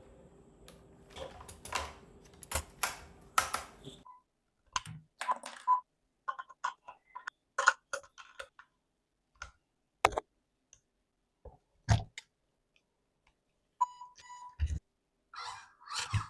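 Irregular light clicks, taps and short rustles of hands handling small plastic parts and packaging, with a faint steady hum under the first few seconds that then stops abruptly.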